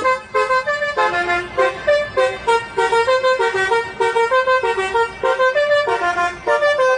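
Musical car horn playing a quick tune of short, stepped notes, about three or four a second.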